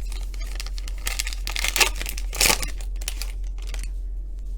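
Plastic foil wrapper of a football trading-card pack being torn open and crinkled, in irregular crackles with the loudest rips about two seconds in.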